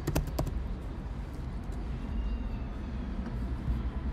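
Computer keyboard typing: a quick run of about five keystrokes in the first half second, then only a steady low hum.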